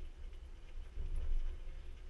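Low rumble of a pickup truck driving slowly over speed bumps, heard from in its bed, with faint light knocks from the road bike in its fork-mount carrier. The rumble swells about a second in.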